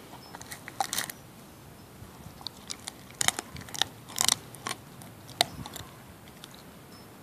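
Husky chewing a dried beef chew with its back teeth: irregular sharp crunches, some in quick clusters, with short pauses between.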